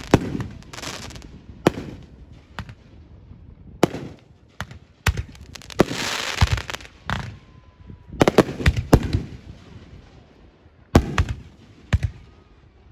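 Fireworks display going off: a string of sharp bangs at irregular intervals, several of them followed by about a second of spreading noise. The bangs thin out near the end.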